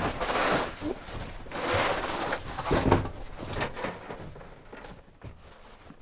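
Cardboard boxes and wooden beehive parts being handled and slid around: scraping and rustling in a few spells, with a heavy knock about three seconds in.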